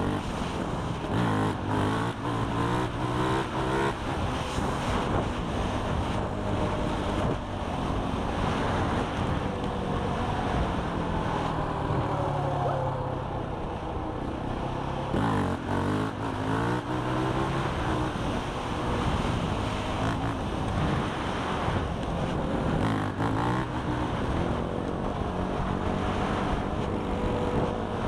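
Quad ATV engine running at road speed. Its pitch climbs and drops several times as it revs through the gears, over steady wind rush on the microphone.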